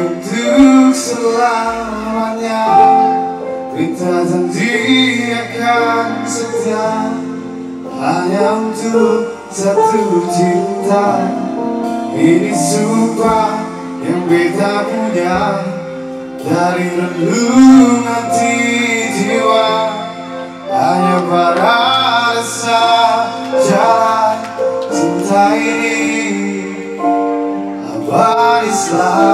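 Background music: a song with a singer over instrumental backing, playing steadily.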